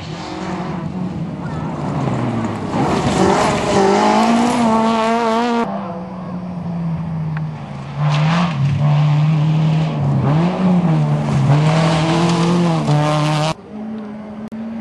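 Peugeot rally cars driven flat out on a loose gravel stage, one after another. Each engine revs hard, its pitch dropping and climbing again through gear changes and lift-offs, over the hiss of tyres on gravel. The sound cuts off abruptly twice, and a quieter engine is heard approaching near the end.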